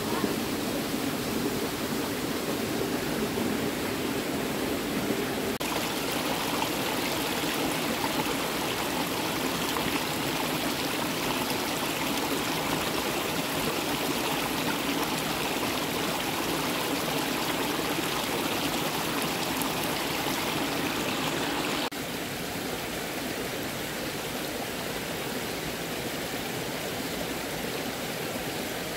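Running water of a stream flowing steadily, with no other events. The sound changes abruptly about six seconds in and again about twenty-two seconds in.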